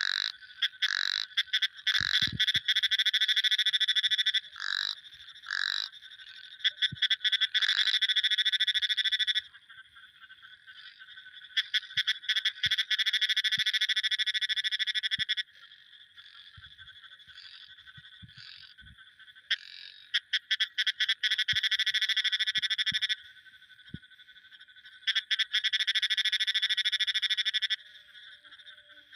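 Frogs calling: five long, rapid trills of a few seconds each, with a few short single calls in the first several seconds, over a faint steady high-pitched background chorus.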